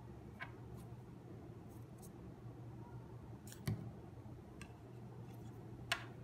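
A few small clicks and taps of hands handling paper cut-outs and craft supplies on a tabletop, over a low steady hum. The loudest are a knock about three and a half seconds in and a sharp click near the end.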